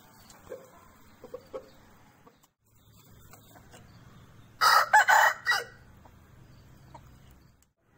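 Aseel rooster crowing once, a loud crow of a little over a second about halfway through. A few soft clucks come in the first two seconds.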